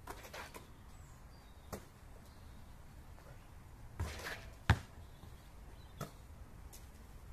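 A basketball drops through the hoop's net with a short rustle, then hits the asphalt court with one sharp bounce about half a second later. A few faint knocks come before and after.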